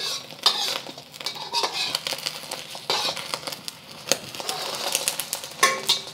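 Metal wok spatula scraping and tapping against a seasoned steel wok, a run of short scrapes and clicks, as a thin egg omelet is rolled up and lifted from the pan.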